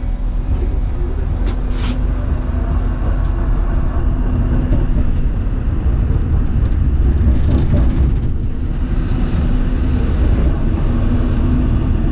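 Onboard running noise of an A1 class electric tram pulling away from a stop and rolling along street track: a steady low rumble of wheels on rails and running gear, growing a little louder as it gets under way, with a faint high whine near the end.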